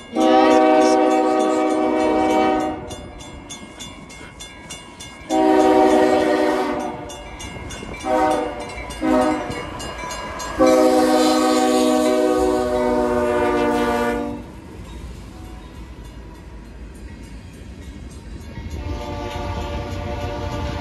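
Air horn of an approaching CSX freight locomotive sounding long, long, short, short, long, the pattern of a grade-crossing warning, the last blast held for nearly four seconds. Near the end the low rumble of the locomotives passing rises.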